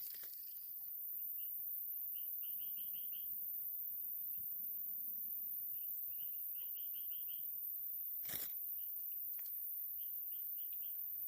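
Frog calling in quick runs of five or six short, high chirps, repeated every few seconds over a steady high insect hiss. A single sharp click comes about eight seconds in.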